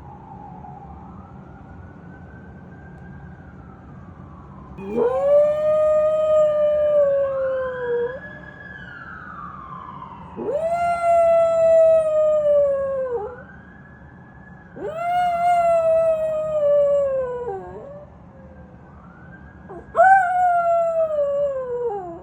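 A chiweenie dog howling four times, each howl rising sharply and then sliding slowly down in pitch over two to three seconds. A faint siren wails up and down underneath and between the howls.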